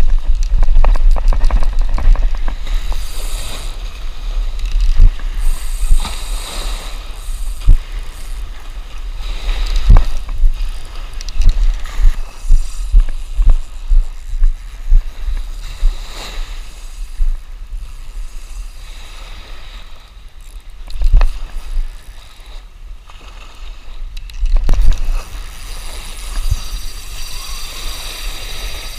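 Wind buffeting the camera microphone over small waves washing on the beach, with knocks from handling the rod and the whirr and clicks of a Shimano Nasci 5000 spinning reel being cranked against a hooked fish.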